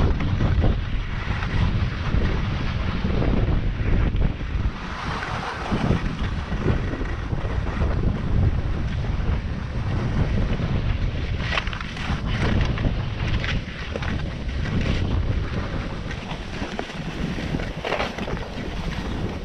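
Wind buffeting the action camera's microphone over the hiss and scrape of skis on packed snow in a slow, braking descent, with a few short sharp scrapes in the second half.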